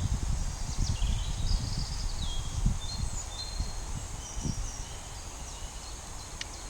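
Wind buffeting the microphone in gusts, strongest in the first few seconds and then easing, with small birds chirping and twittering.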